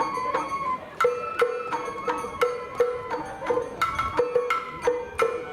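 Sawara-bayashi festival music: a traditional hayashi ensemble plays a steady beat of struck notes, about two to three strikes a second, each with a short ringing tone.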